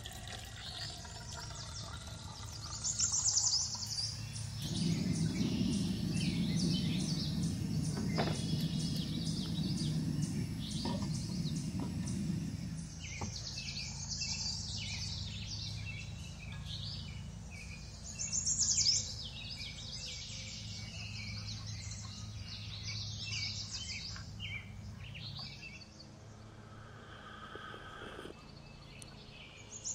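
Songbirds chirping and singing repeatedly in woodland. About five seconds in, a steady low rushing noise starts and runs for about eight seconds before stopping.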